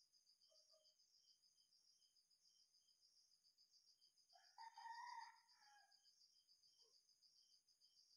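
Faint, steady high-pitched pulsing chirps of insects, with a louder bird call about halfway through that rises and falls for over a second.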